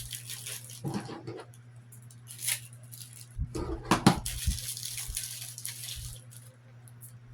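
Rustling and crinkling of packaging as a small item is handled and turned over, with a few soft knocks, the loudest about four seconds in, over a steady low hum.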